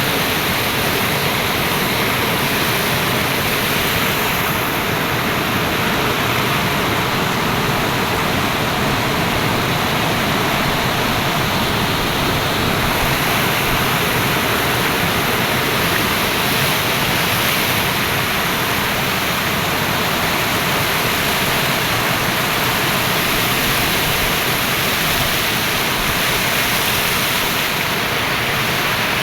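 Waterfall rushing: a loud, steady roar of falling water that doesn't change.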